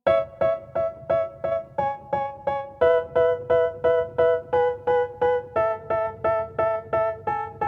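Music: a keyboard repeating short chords about three times a second, shifting to new chords every couple of seconds, with no vocals.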